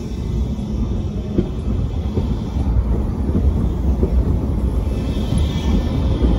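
Tram passing close by: a low rumble of steel wheels on the rails and its running gear, growing louder as it goes by.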